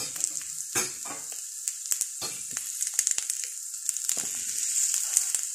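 An egg frying in butter in a small non-stick pan: a steady sizzle with scattered pops and crackles. Partway through, a metal slotted spatula works under the egg, adding light scraping and clicks.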